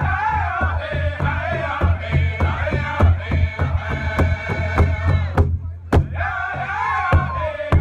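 Background music: voices singing over a steady beat and bass. It drops out briefly about five and a half seconds in, then comes back in on a hit.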